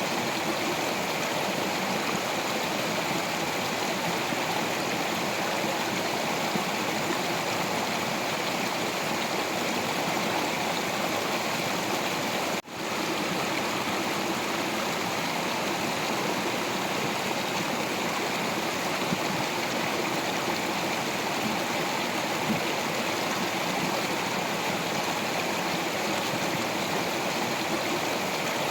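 Stream water flowing and splashing steadily over rocks, an even rush with no change, except for a momentary dip in level about halfway through.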